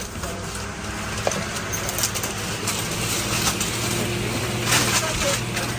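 Indoor shop ambience: a steady low hum with a few brief rustles about two seconds in and again near the end.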